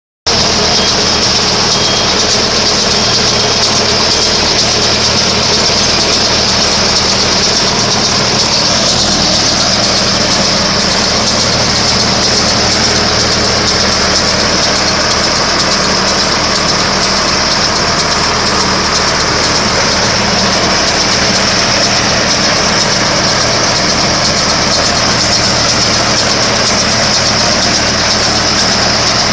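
Tractor engine running steadily while driving a Shaktiman round baler, with a constant high hiss from the machinery on top of the engine sound.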